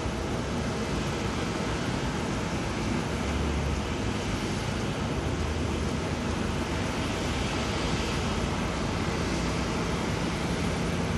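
Jet airliner engines, heard as a steady wash of noise.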